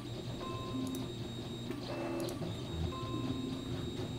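Windows system chimes from the PC repeating: short groups of clean tones about every two and a half seconds, as the USB port keeps disconnecting and resetting after a power surge caused by the shorted flight controller. A steady low hum lies underneath.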